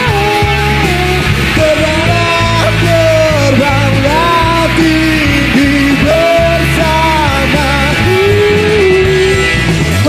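Rock band playing, with a male voice singing a melody over guitar and steady low bass.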